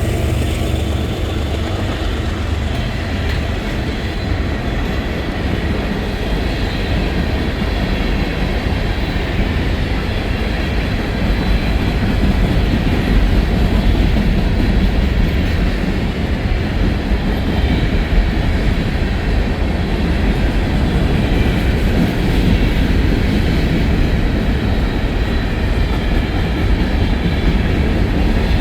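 Coal train's freight cars rolling past, a steady rumble of steel wheels on the rails.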